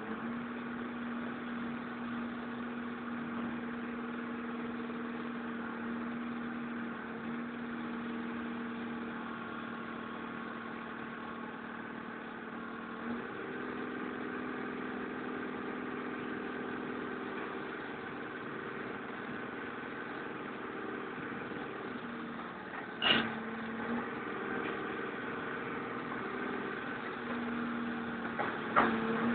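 Truck engine running steadily to drive a hydraulic knuckle-boom crane loading car scrap with its grapple, its tone shifting a little as the crane's load changes. Two sharp bangs come through, one about two-thirds of the way in and one near the end.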